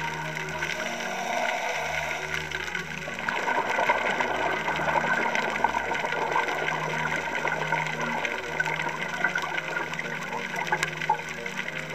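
Bubbling and gurgling of a scuba diver's exhaled air, growing louder about three seconds in and easing off near the end.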